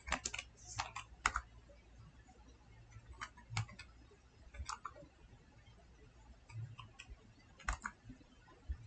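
Faint, scattered clicks of a computer keyboard and mouse: a quick run of clicks in the first second or so, then single and paired clicks every second or two.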